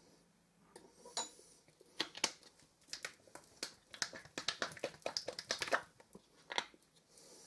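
An irregular run of sharp clicks and taps from kitchen items being handled, starting about a second in, coming thick and fast in the middle and stopping shortly before the end.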